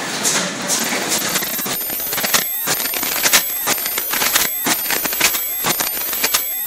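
Automated pocketed coil spring machine running: a dense metallic clatter, then from about two seconds in a busy run of sharp steel clicks and clanks, several a second, each followed by a ringing tone.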